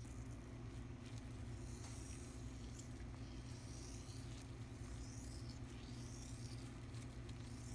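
KTM 1290 Super Adventure hydraulic steering damper being stroked in and out by hand, giving a faint gritty, sandy scratching and hiss as the shaft slides. The owner takes it for dirt inside the leaking damper, with some of the noise coming from air and oil. A steady low hum runs underneath.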